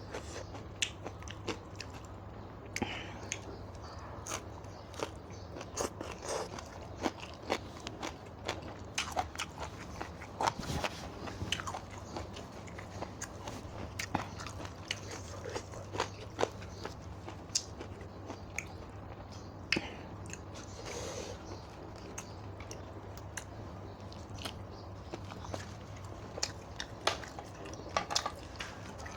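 A person eating close to the microphone: repeated biting and chewing with crunchy bites and small wet mouth clicks. A low, steady hum sits underneath.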